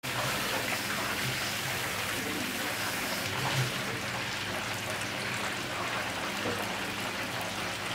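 Duck wings deep-frying in hot oil: a steady, dense sizzle.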